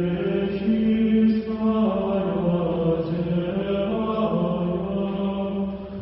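Chanted singing: several voices holding long, slowly changing notes, fading out at the very end.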